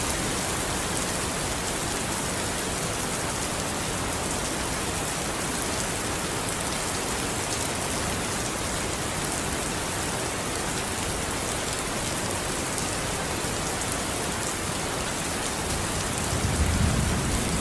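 Steady rain falling on a surface, an even hiss of many drops. A low rumble swells in near the end.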